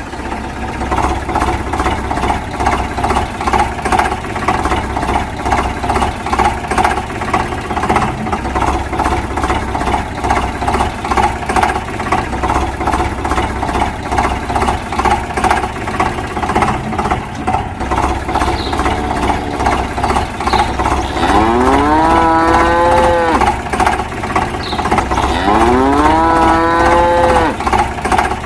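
A steady rhythmic engine-like chugging, with two long cow moos near the end, each rising and then falling in pitch.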